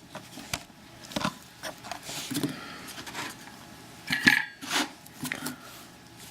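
Scattered metallic clicks and clinks of a key being inserted and turned in a Mul-T-Lock 7x7 pin-tumbler lock to lock it back up. One clink about four seconds in rings briefly.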